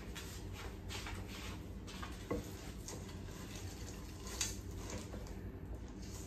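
Wooden spoon scraping through thick chocolate chip cookie dough in a stainless steel mixing bowl as the chips are folded in by hand: repeated soft scrapes, with a sharper knock of spoon on bowl about two and a half seconds in.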